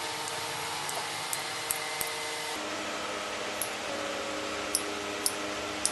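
Scissors snipping into a fabric seam allowance along a curve: short, sharp clicks at irregular intervals, about seven of them, over a steady background hum.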